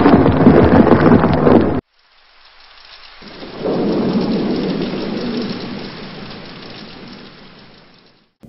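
Thunderstorm sound effect of rain and thunder. A loud first burst cuts off abruptly about two seconds in. A rumble of thunder then swells and slowly fades away.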